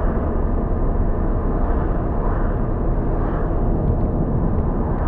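Steady road noise of a car driving at speed: tyre and engine rumble heard from inside the cabin, even and unbroken.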